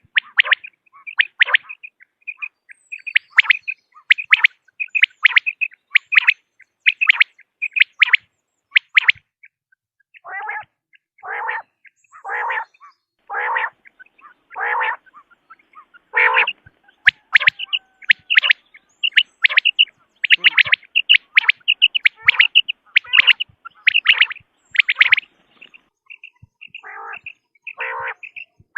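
Common quail calling: quick groups of short, sharp, high notes, broken in the middle by a run of six lower, harsher calls about a second apart, with two more of these near the end.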